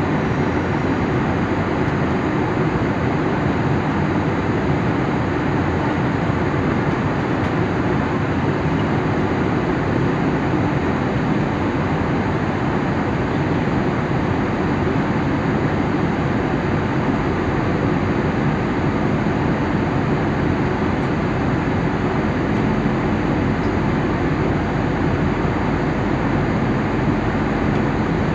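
Airliner cabin noise in cruise flight: a steady, even rush of engine and airflow noise.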